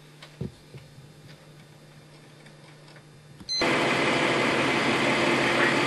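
A soft knock and a few faint clicks over a low hum. Then, about three and a half seconds in, the steady running of a utility bucket truck's engine cuts in abruptly and loudly.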